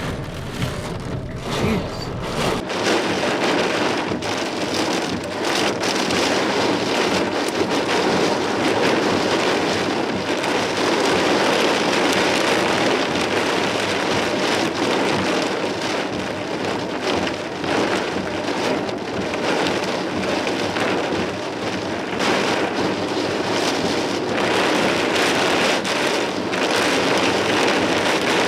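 Torrential rain from a thunderstorm's gust front pouring down hard: a dense, steady hiss of drops. A low rumble in the first couple of seconds stops abruptly.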